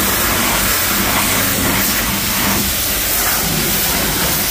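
High-pressure car wash spray wand jetting water hard against the underside and wheel well of a car, knocking off ice and slush: a steady, loud hiss of spray.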